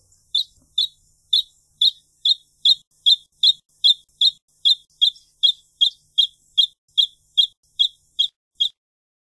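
A wrentit singing a long series of short, high piping notes, about two and a half a second and nearly even in pace, that stops shortly before the end.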